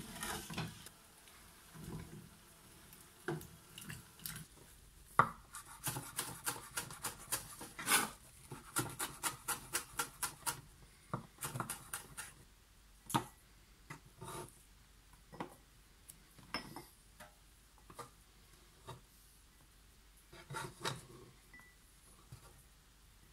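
Kitchen knife chopping green herbs on a wooden cutting board: a run of quick knocks of the blade on the wood, about three a second, then scattered taps as the herbs are gathered up. At the start there are a few soft scrapes of a wooden spoon stirring in an enamel saucepan.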